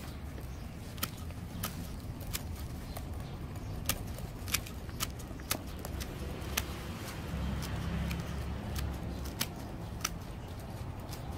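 Bypass pruning shears snipping through the roots of a bougainvillea root ball, a short sharp click at each cut, about one every half second to second at an uneven pace, over a low steady rumble.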